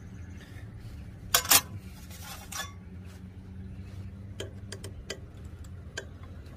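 Metal clinks and clicks of tools and parts as a blade is taken out of a Delta TP300 planer's cutterhead: two loud clicks about a second and a half in, a short scrape, then scattered light clicks, over a low steady hum.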